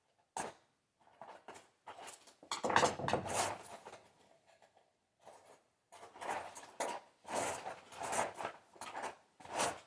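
Rummaging for tools: small metal tools and parts clinking and rustling in irregular bursts, with short pauses between.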